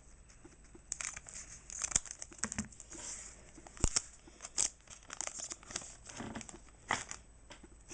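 Foil booster pack wrapper being handled and torn open, crinkling with irregular crackles and a few sharper snaps.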